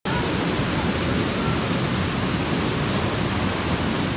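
Water rushing steadily down a metal spillway chute, a loud, even churning rush.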